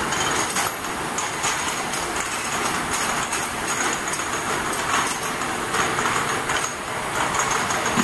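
Automatic ultrasonic bottle washing machine running: a steady mechanical clatter of many rapid, irregular clicks as small glass vials ride through its racks and feeder, over a faint steady high whine.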